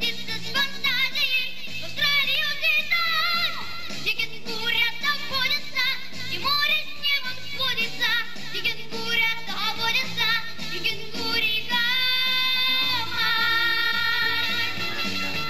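A young vocal group singing a pop-style song over instrumental accompaniment with a steady beat, holding long notes near the end.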